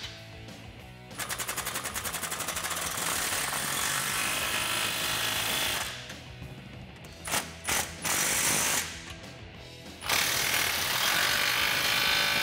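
Impact wrench with a 15 mm deep socket hammering exhaust clamp nuts tight in several runs of rapid strokes: a long run from about a second in, two short bursts around seven and eight seconds, and another long run from about ten seconds.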